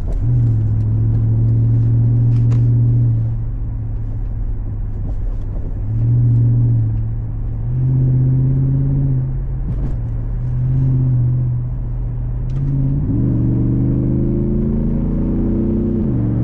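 Freshly rebuilt Jeep SRT8 Hemi V8 running under load, swelling and easing several times with the throttle. Near the end it climbs steadily in pitch for about three seconds, then drops suddenly at a gear change.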